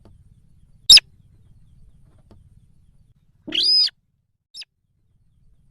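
Recorded lure call of the sintar bird: a short sharp note about a second in, then a longer arched call about three and a half seconds in, followed by a faint short note.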